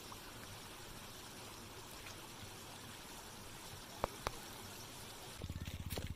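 Small stream flowing steadily, with two light clicks about four seconds in. Near the end a motorcycle engine starts running with a low, even pulsing.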